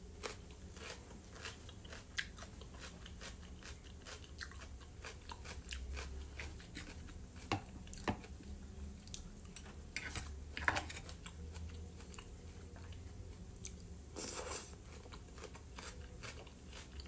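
A person chewing fried potatoes and fresh vegetable salad close to the microphone: wet mouth clicks and soft crunches throughout, with a few sharper clicks midway.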